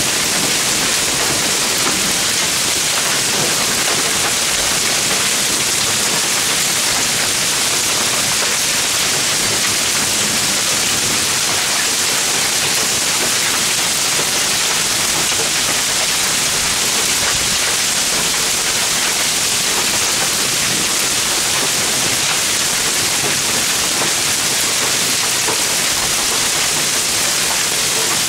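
Hailstorm: hail and rain pelting down in a steady, dense hiss that does not let up.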